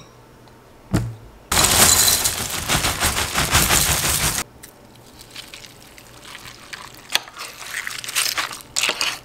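A ceramic bowl set down with a knock about a second in, then cornflakes poured from their bag into it in a loud, dense rattle for about three seconds. After that come quieter sounds and a few sharp clinks of a metal spoon against the bowl near the end.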